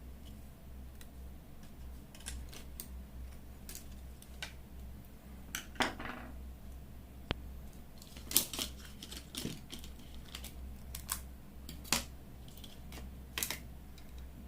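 Scattered light clicks and taps of small disassembled smartphone parts and tools being handled and set down on a work surface, a few of them sharper, over a steady low hum.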